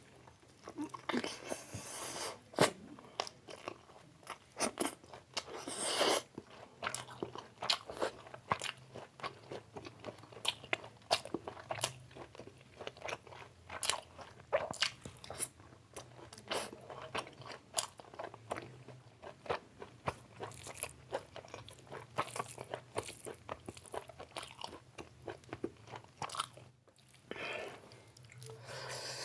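A person eating chicken biryani with chicken curry close to the microphone: steady, irregular chewing and biting with many sharp, crunchy clicks and wet mouth sounds.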